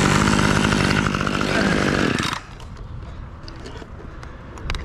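Husqvarna chainsaw running at full throttle, its pitch sagging slightly before it stops abruptly a little over two seconds in. A few faint knocks follow near the end.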